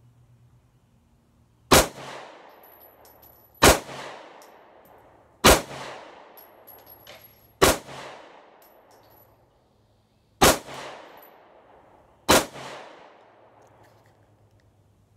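Six pistol shots from a Sig P365, fired singly about two seconds apart with a longer pause before the fifth, each ringing off under the range roof. The string ends with the pistol failing to extract, leaving a spent casing stuck in it.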